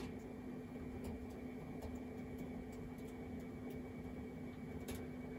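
Scattered, irregular soft keystrokes on a laptop keyboard over a steady low hum.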